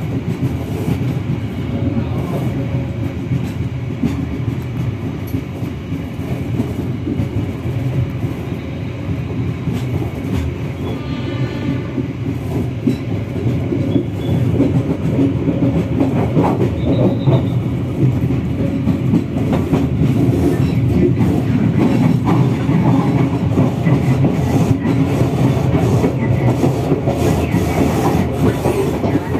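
Running noise of the Kahuripan economy-class passenger train heard from inside the carriage as it moves: a steady rumble and rattle of wheels on track that gets louder about halfway through.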